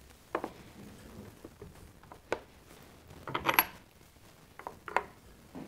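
Scattered small metal clicks and clinks of screws and a screwdriver being handled while the top handle is fitted onto a Skil miter saw, with a cluster of clinks and a short high metallic ring about three and a half seconds in.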